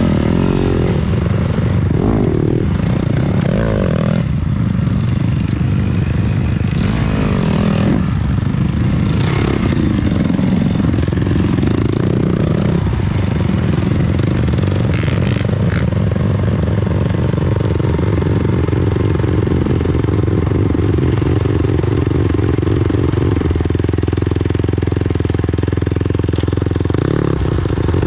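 Kawasaki motocross bike engines running, revving up and down in the first dozen seconds as a bike rides by close, then held steady with throttle blips as bikes wait on the start line.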